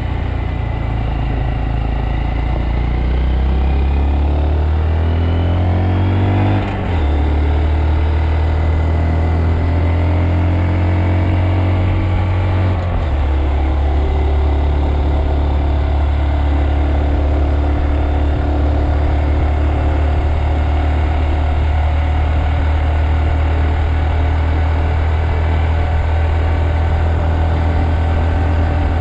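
Honda Monkey's small single-cylinder four-stroke engine pulling the bike along a road. The engine note rises for the first several seconds, then drops sharply about seven and thirteen seconds in as the rider shifts up, and holds a steady cruising note after that.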